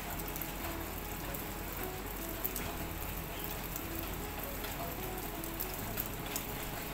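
Steady light rain, a drizzle falling on garden leaves and the ground, with single drops tapping now and then.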